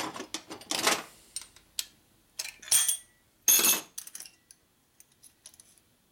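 Metal clinking and clattering of hand tools and engine parts being handled on a steel workbench. Several sharp clatters with a short metallic ring come in the first four seconds, then a few lighter ticks.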